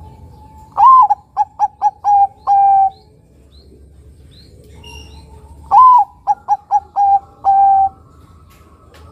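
A zebra dove (perkutut), a Bangkok–local crossbred, sings its cooing phrase twice. Each phrase is a rising-and-falling opening note, four quick clipped notes, then a long held lower note.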